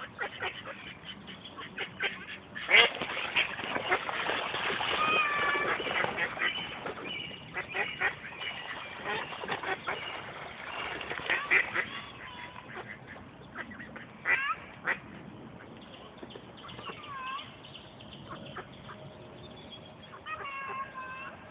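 Mallards quacking, with a burst of loud splashing and wing-flapping on the water from about three seconds in until about twelve seconds: a mallard hen chasing off another duck to protect her ducklings.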